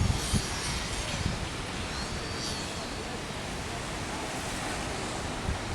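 Wind buffeting the microphone, a gusting low rumble over a steady broad hiss.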